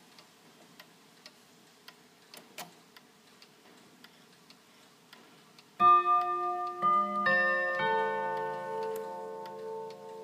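Antique ODO 121 chiming clock ticking steadily, then about six seconds in its chime rods are struck four times in quick succession, the notes ringing on and slowly dying away.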